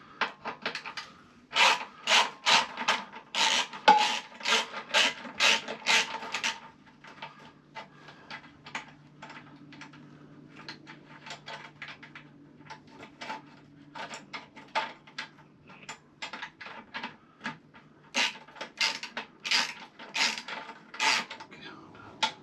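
Hand ratchet worked back and forth in quick rasping strokes, about two or three a second, in three runs with pauses between, undoing the bolts on a KTM 1290 Super Duke's exhaust.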